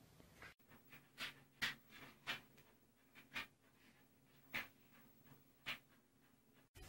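Faint, soft rustles, about eight at irregular intervals, from a hand stroking a cat's fur as it lies on a blanket.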